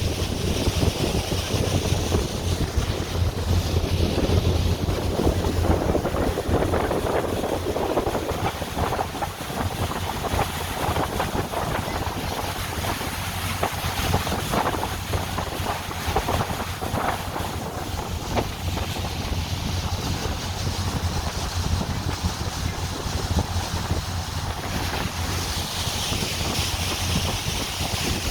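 Tour boat under way: a steady low engine drone with water rushing past the hull and wind buffeting the microphone.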